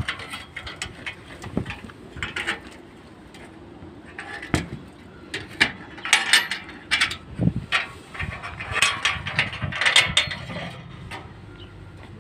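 Forged iron fireplace doors being worked by hand: an irregular series of sharp metallic clicks and clanks, busiest in the middle and second half.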